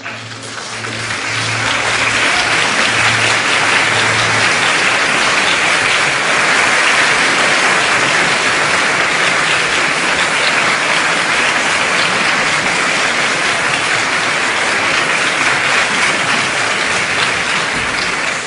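Audience at a live opera performance applauding loudly and steadily at the end of an aria, in an old live recording.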